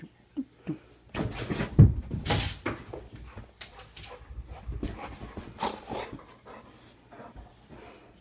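Pit bull moving about on and off a bed: a heavy thud nearly two seconds in, then a few seconds of scuffling paws and rustling bedding, fading near the end.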